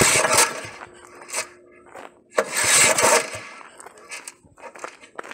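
Two rasping pulls on the Goldoni walking tractor's engine starter, one at the start and one about two and a half seconds in, with scraping between; the engine does not catch.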